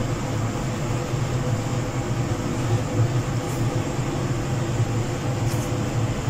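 A steady low mechanical hum under an even background hiss, like a running fan or motor.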